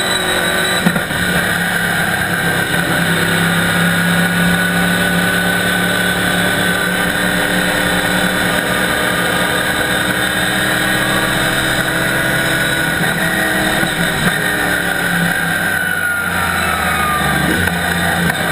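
Chevrolet Camaro Cup race car's ZZ4 small-block V8 running at fairly steady revs, heard from inside the stripped cabin. The pitch drops near the end as the engine slows.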